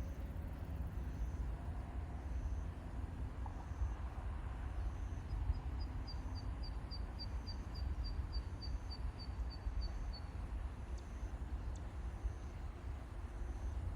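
Steady low rumble, with a small bird calling a run of about twenty short high notes, about four a second and falling slightly in pitch, through the middle.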